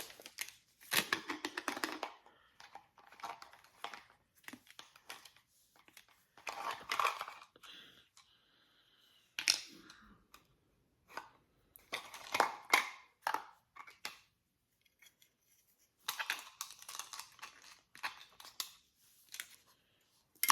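Packaging being torn and crinkled open by hand, in about six separate bursts of rustling and ripping with short pauses between them.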